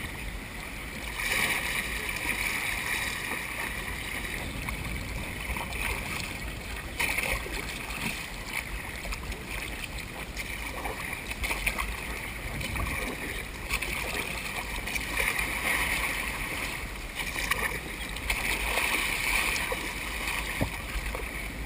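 Kayak being paddled through light chop: water sloshing and splashing around the hull and paddle blades, swelling and easing every few seconds, over a steady low rumble.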